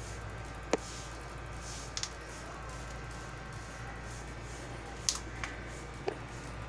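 A few short, sharp clicks, about five, spread irregularly over a steady low hum.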